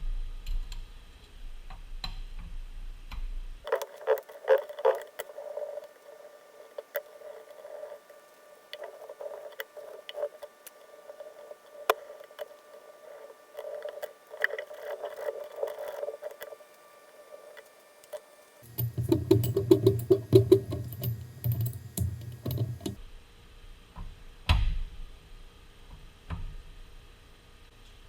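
Metalworking machine tools running, in several edited clips that change abruptly: steady machine noise with thin steady tones and scattered clicks, then a louder, deeper stretch with rapid clicking about two-thirds of the way in, then lighter clicks and knocks.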